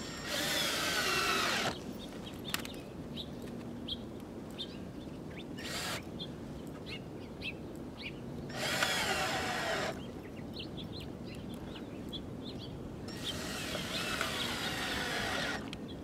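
Cordless drill driving 1 5/8-inch gold decking screws through half-inch boards: three runs of a second or two each, the motor's pitch shifting as each screw goes in, and a short blip about six seconds in.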